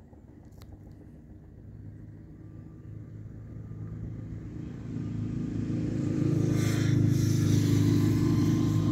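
A motor engine running, growing steadily louder over about six seconds as it comes closer, then holding loud and steady.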